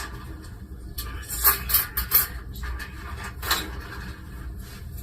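Kitchen utensils scraping and clattering against cookware in several short strokes during the second second, with one more about three and a half seconds in, over a low steady hum.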